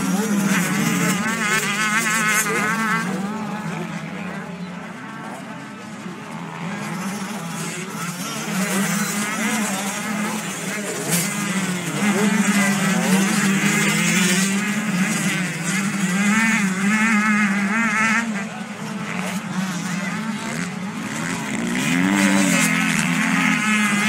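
Motocross motorcycles racing round a dirt track, their engines revving up and dropping again and again as they shift and take the jumps, with a steady low drone underneath. The sound swells as the bikes pass nearest, quietest about five seconds in.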